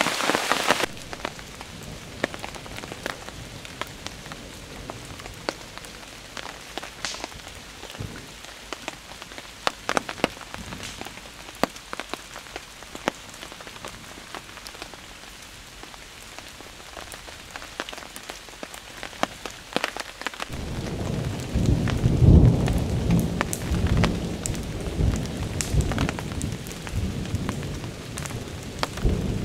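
Heavy rain falling through woodland trees, with many separate drops ticking on leaves. About two-thirds of the way in, a long, loud, low rumble of thunder sets in and goes on.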